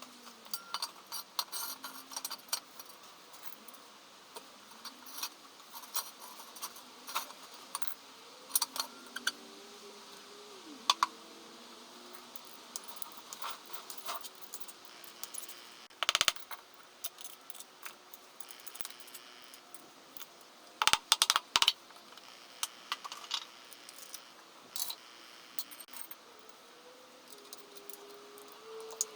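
Irregular metallic clinks and taps of hand tools and metal engine parts being handled and set down, with a few louder clusters of clinks.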